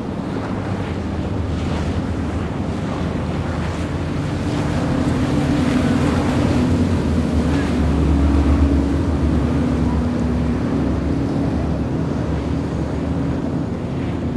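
Motor cruiser engines running at full speed past, over the rush of the hull and spray through the water. The engine drone builds to its loudest about eight seconds in and then eases off as the boat heads out. Wind buffets the microphone.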